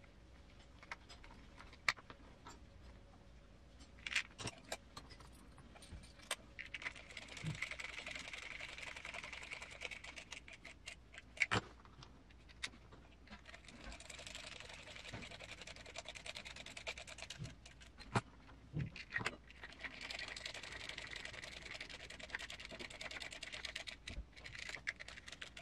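Cordless electric screwdriver running in three spells of about three to four seconds each, driving M3 cap head screws into an RC transmission case, with light clicks of small parts and tools being handled in between.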